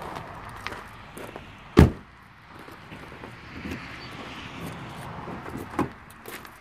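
A pickup truck's driver door slammed shut once, loudly, about two seconds in, followed near the end by a smaller, sharper thump.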